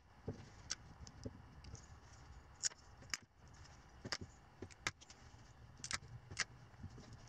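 Diagonal side cutters working at a small piece of turned wood: faint, scattered sharp clicks of the metal jaws snipping and handling, about half a dozen in all.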